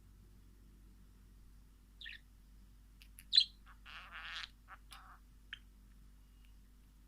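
Wild birds calling in short, separate chirps a few seconds apart, with a longer, rougher call about four seconds in.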